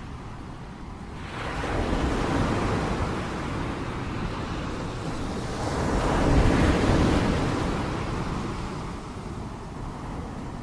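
Ocean surf: waves breaking and washing up the shore. The rush swells about two seconds in and again, louder, around six to seven seconds.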